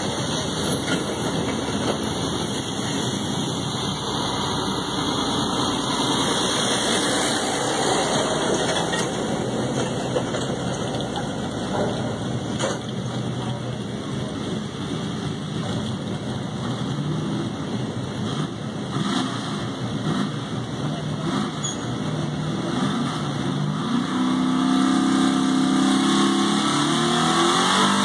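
A pulling truck's engine running hard under load, a loud steady roar. In the last few seconds the engine note grows louder and climbs in pitch.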